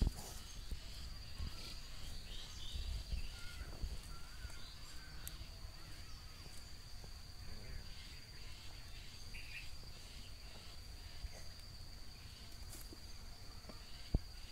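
Steady high-pitched insect drone, with a low rumble on the microphone, scattered small clicks and a few short chirps.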